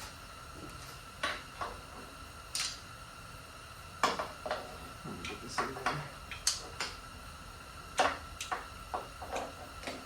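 Metal hand tools and engine parts clinking and clicking, about a dozen irregular sharp metallic knocks, the loudest about four and eight seconds in.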